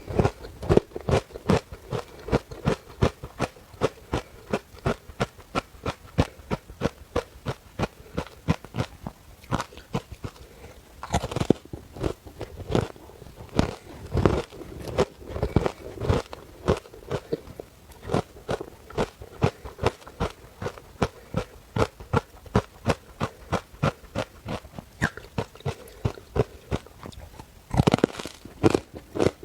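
Ice being chewed: a steady run of crisp crunches, about three a second, with a few louder, sharper bites along the way.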